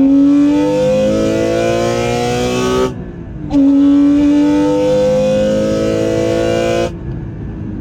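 Porsche Cayman GT4's flat-six engine breathing through a carbon fibre intake under hard acceleration. The revs climb, break off for a moment about three seconds in at an upshift, come back lower and climb again, then fall away near the end.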